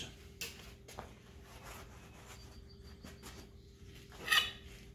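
Quiet handling sounds over a faint steady hum, with a few light clicks and one brief scraping rustle a little over four seconds in as a DeWalt angle grinder is lifted off a steel plate. The grinder is not yet running.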